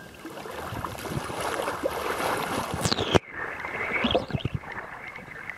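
Water sloshing and splashing against a kayak and its low-mounted camera as the kayak moves through the water. About three seconds in, a falling whoosh ends in a sudden cut, and the splashing goes on more muffled after it.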